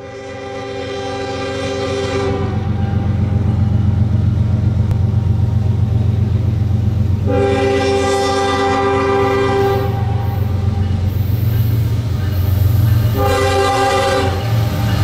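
Diesel locomotive air horn, a chord of several tones, sounding three long blasts for the grade crossing, the third a little shorter, over a steady low diesel engine rumble.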